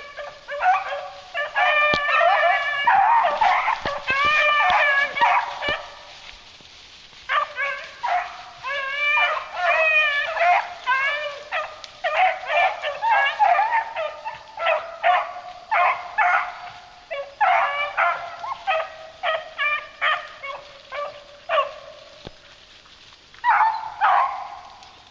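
Pack of beagles baying on a rabbit's trail: a rapid run of short, high, yelping bawls from several hounds at once, with a lull about six seconds in.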